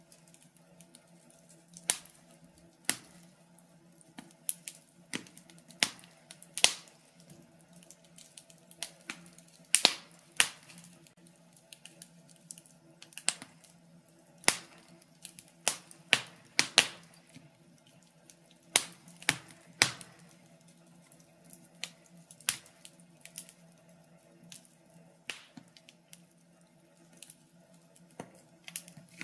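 Wood fire crackling, with sharp irregular pops and snaps, some much louder than others, over a faint steady hum.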